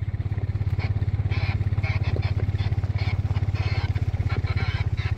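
A vehicle engine running at a steady speed with an even low throb, with light rattles over it.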